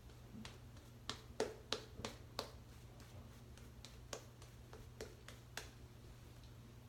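Faint, irregular soft clicks and taps from a shaving brush working up lather with shaving soap: a quick cluster of about half a dozen, then a few single ones spaced out.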